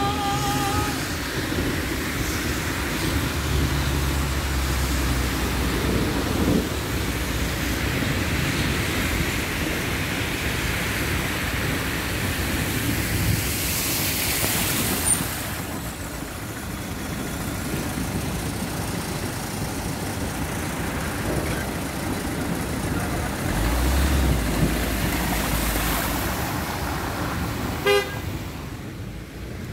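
Car driving through rain-flooded streets: a steady wash of tyres through standing water and rain, with road traffic noise. A car horn toots briefly at the start, and the rush of water noise grows louder about fourteen seconds in.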